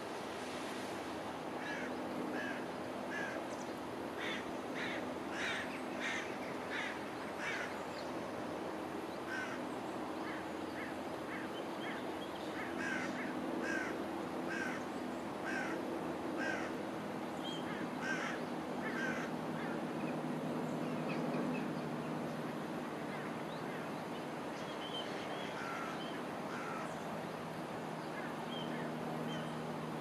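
Birds giving short calls in quick series, several notes a second for stretches of a few seconds, over the steady rush of a shallow river flowing over rocks. A low steady hum runs underneath.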